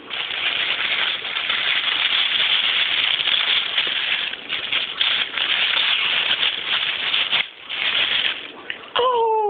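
Tissue paper rustling and crinkling as hands unwrap it from a padded mailer, a dense run of crackles with a short pause about seven and a half seconds in.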